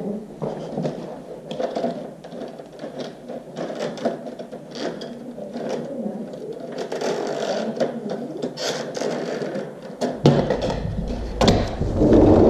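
Vertical window blinds on a sliding glass door being worked by hand: the plastic wand and gears turn the vanes, and the carriers rattle along the head rail as the slats clack together, making a run of irregular mechanical clicks and ratcheting. About ten seconds in, a low rumble and louder knocks set in.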